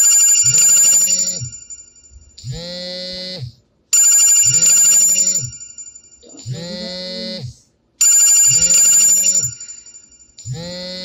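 Phone ringtone playing in a loop, repeating every four seconds: a loud, bright ringing burst, then a lower voice-like phrase, each cycle the same.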